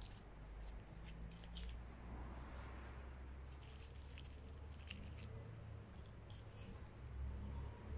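Garden birds chirping faintly, with one bird's repeated high trill starting about six seconds in. Scattered light clicks and a steady low rumble lie underneath.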